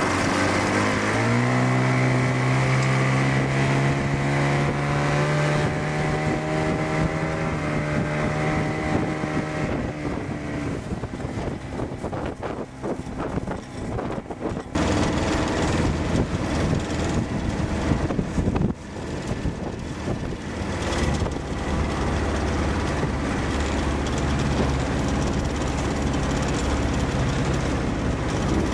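Suzuki DT-40 outboard motor running a skiff under way. Its pitch rises as the throttle opens about a second in, then holds steady. Later it runs on at a steady lower hum, with wind and water noise over it.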